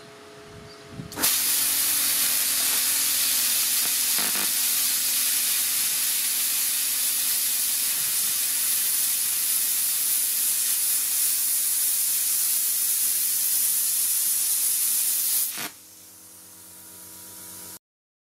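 Parkside Performance PPSK 40 A2 plasma cutter cutting 10 mm steel at 40 amps: a loud, steady hiss of the arc and air jet starts suddenly about a second in and lasts some fourteen seconds. When the cut ends the hiss stops, and the machine runs on with a quieter steady hum.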